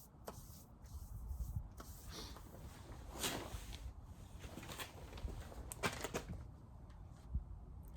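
Handling noise from wooden beehive frames: scattered light knocks and clicks, with longer scrapes about three seconds in and again about six seconds in, over a low rumble.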